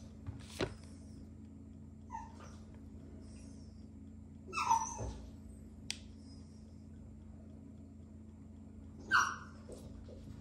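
Basenji puppy whining in three short calls that bend in pitch, about two, four and a half and nine seconds in, the later two loudest, while it begs for cheese. Two sharp clicks come between them.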